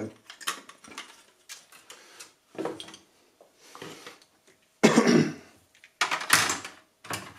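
A person coughing about three times in the second half, after a run of faint clicks and taps.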